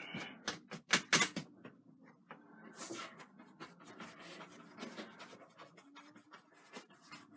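Stiff bristle brush scrubbing and dabbing oil paint onto a canvas in short, irregular scratchy strokes, with a few sharp knocks about a second in as the brush is reloaded with paint.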